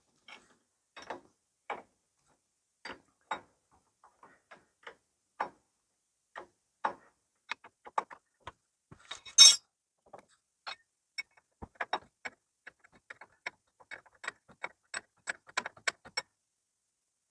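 Sharp metallic clicks and clinks of hand wrenches working on a backhoe stabilizer cylinder's fittings. They are scattered at first and come faster near the end, with one louder scrape about halfway through.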